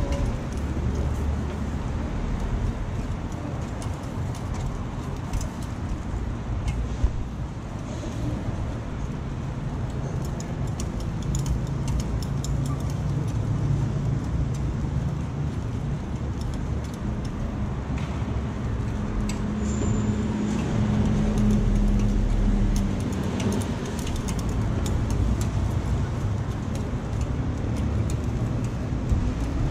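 Steady low rumble of street noise, with a hum that grows stronger for a few seconds past the middle. Faint scattered ticks of metal picks turn takoyaki in the cast-iron pan.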